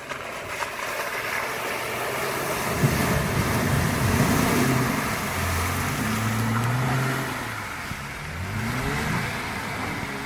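Off-road vehicle's engine revving, its pitch rising and falling several times.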